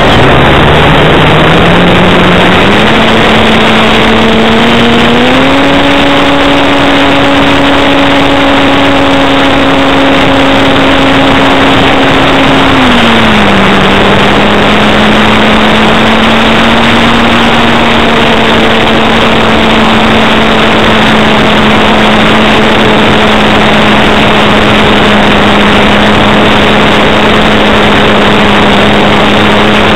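Axi brushless electric motor and APC 10x5 propeller of an RC aerobatic plane, heard from a camera on the plane: a loud rushing sound carrying one steady tone. The tone rises over the first few seconds as the throttle opens for the takeoff, steps up again about five seconds in, eases down a little about thirteen seconds in, and then holds steady in flight.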